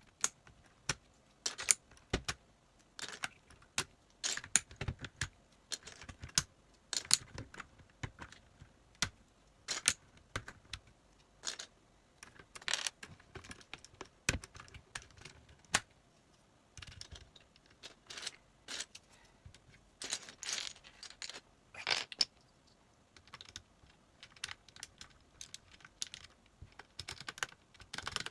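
Plastic keycaps clicking and clacking on an Ajazz mechanical keyboard: irregular sharp clicks, singly and in short clusters, with pauses of a second or so between them.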